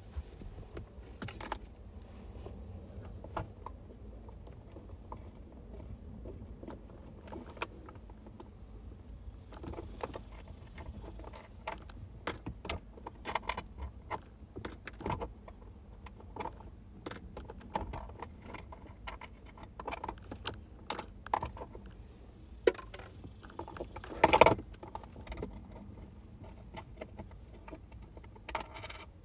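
Metal hand tools and bolts clinking and tapping irregularly in a car's engine bay, as mounting bolts are fitted and tightened. There is a louder clatter a few seconds before the end.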